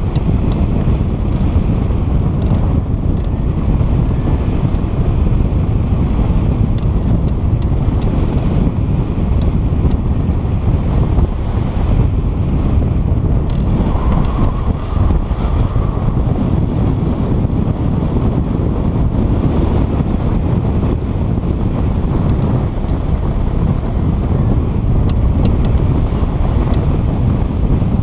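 Wind buffeting the microphone: a steady low rumble throughout, with a few faint ticks.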